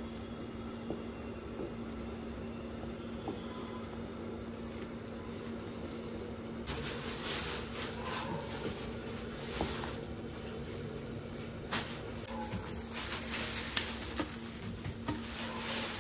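Milk simmering and reducing in a wide pan, with a steady low hum underneath. From about halfway a wooden spatula scrapes and stirs through the milk in repeated strokes, with a few sharp knocks against the pan.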